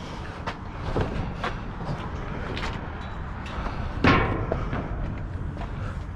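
Knocks and clunks of curbside scrap being handled and shifted, with one loud thump about four seconds in, over a low steady rumble.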